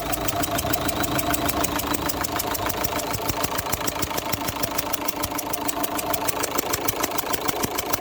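Opel Zafira 1.9 CDTI four-cylinder diesel idling with a fast, regular ticking puff. This is combustion gas blowing past the number 2 injector's worn copper sealing washer, so that cylinder is losing compression.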